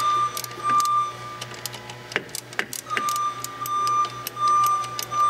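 Irregular metallic clicks and taps of hands and tools working the hydraulic line fitting at a clutch slave cylinder. A steady high-pitched tone sounds at the same time, stops after about a second and a half and returns about three seconds in.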